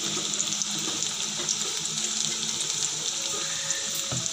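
Spinach and gram-flour bhaji deep-frying in hot oil in a kadhai: a steady sizzle with fine, irregular crackling.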